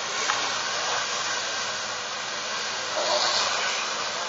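A field of autocross special buggies racing on a dirt track, their engines blending into a steady rushing noise with no clear engine note, swelling briefly about three seconds in.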